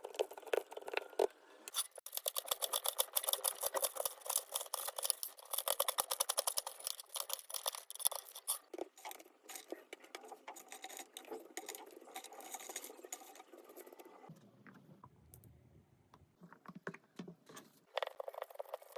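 Close-up food-preparation sounds: a fast run of crisp clicks and scrapes from utensils and ingredients, busiest in the first half, then sparser handling with a duller, lower sound a few seconds from the end.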